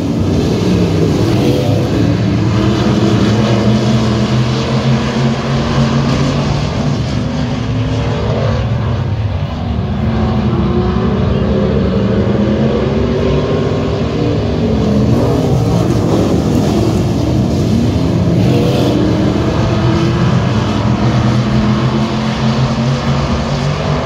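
Several IMCA stock cars' V8 engines racing, loud and continuous, their pitch rising and falling as the drivers get on and off the throttle around the track.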